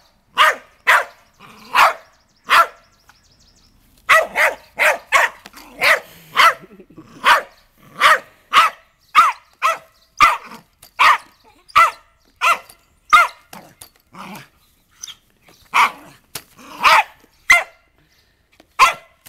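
Small terrier barking rapidly and repeatedly, about two or three sharp barks a second, with a short pause about three seconds in: excited barking at a string trimmer head it is chasing.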